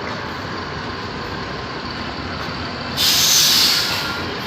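A bus engine runs steadily. About three seconds in, the bus lets out a sudden loud hiss of compressed air from its air system, which fades away over about a second.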